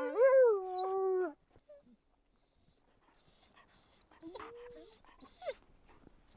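Wolf giving a short whining howl that rises and then holds for about a second. Fainter high-pitched squeaks follow.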